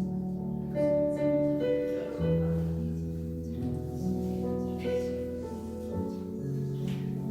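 Electronic keyboard playing a slow hymn: held bass notes that change every second or two under a melody of sustained notes.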